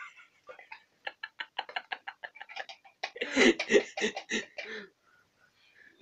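A cat eating sour cream: a quick run of wet smacking clicks, about seven a second, then a louder, rougher run of eating noises for nearly two seconds that stops about a second before the end.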